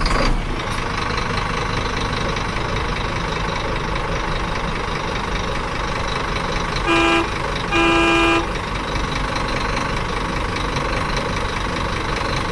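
A truck engine running steadily, with its horn sounded twice about seven seconds in, a short toot and then a slightly longer one.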